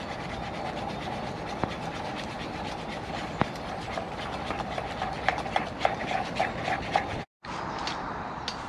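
Open wood campfire crackling: a steady hiss with scattered sharp pops and snaps, thickest between about five and seven seconds in. The sound drops out for a moment just after seven seconds.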